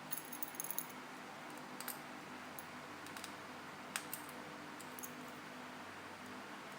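Faint, scattered light clicks and taps from small tools and parts on an opened iPhone 5 during repair, a quick cluster at the start and single clicks about two and four seconds in.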